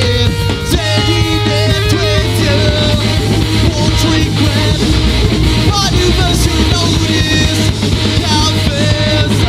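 Live rock band playing a song: electric guitars, bass guitar and drum kit with a steady driving beat, taken as a single mono feed straight from the mixing desk.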